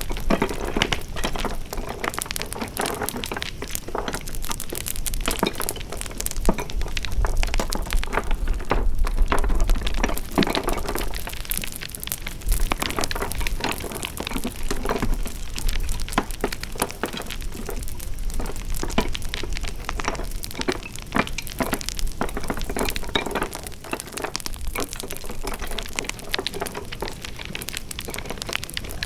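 Wood fire crackling, with many irregular snaps and pops over a soft hiss.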